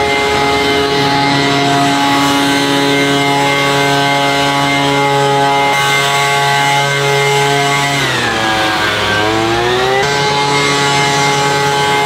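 Handheld leaf blower running at a steady whine, blowing water off a freshly washed car. About two-thirds of the way through its pitch drops and then climbs back as the blower is throttled down and up again.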